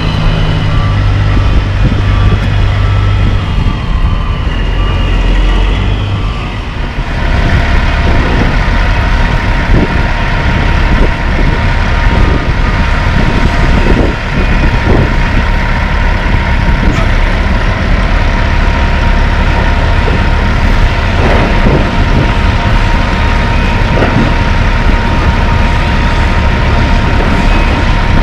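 Heavy diesel engines running: first the Western Star dump truck idling, then, from about seven seconds in, the John Deere 350D LC excavator working, with a steady whine and scattered knocks as chunks of old asphalt drop into the truck's steel dump box.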